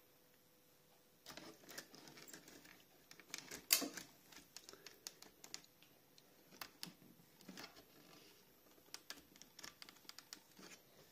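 TT:120 scale plastic model-railway turntable deck being turned by hand, giving irregular clicks and ticks, with one louder click about four seconds in.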